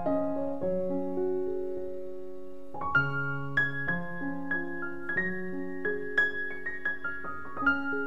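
Background piano music: a slow melody of single notes struck every half second to a second and left to ring over held low notes.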